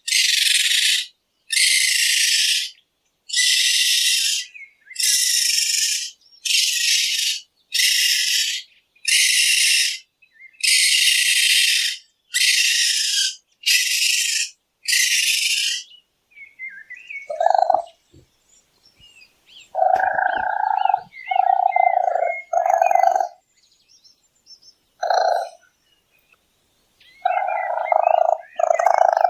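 Raccoon hissing: about a dozen short, breathy hisses in an even series. Then, from about 17 seconds in, a run of short, pitched chittering calls.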